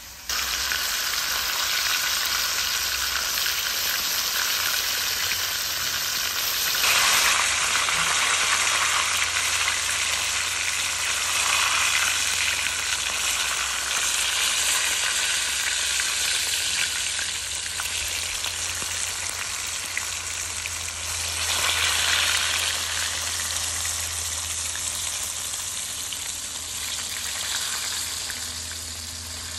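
Butterfish pieces dredged in flour frying in a pot of hot oil: a steady sizzle that swells louder about seven seconds in and again a little past twenty seconds.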